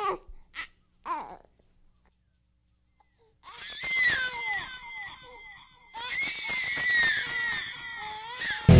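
A baby, a few short babbling sounds at first, then after a pause of about two seconds long wailing cries that rise and fall in pitch.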